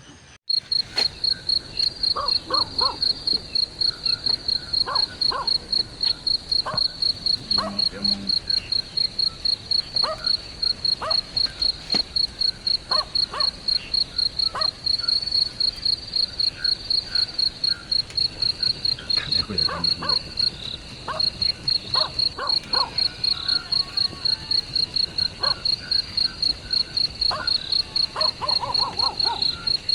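A field cricket chirping loudly and steadily, a high pulsed note repeating about three times a second, with scattered short calls of other night animals underneath.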